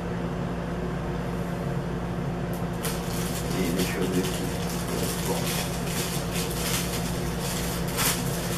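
Clear plastic bag crinkling and rustling as it is handled and pulled open by hand, starting about three seconds in, over a steady low hum.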